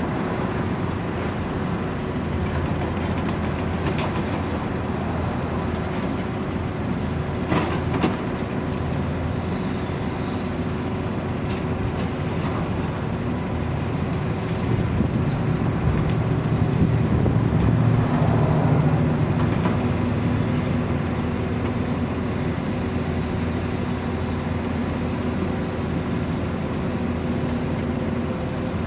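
Steady low rumble of a heavy engine running, swelling for a few seconds in the middle, with a couple of sharp metal clanks about eight seconds in as pieces of scrap steel are shifted in the trailer.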